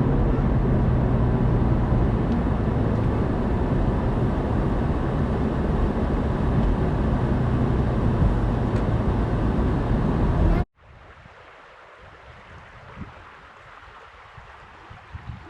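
Steady road and engine noise of a moving vehicle, a loud low drone. It cuts off abruptly about two-thirds of the way through, leaving a much quieter background with a few soft knocks.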